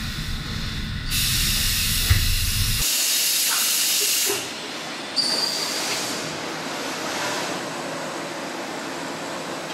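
Horizontal machining center at work: a low rumble under a steady hiss, which grows much louder about a second in. The sound changes abruptly a few seconds in to a quieter, even hiss of machine motion, with a brief high whine near the middle.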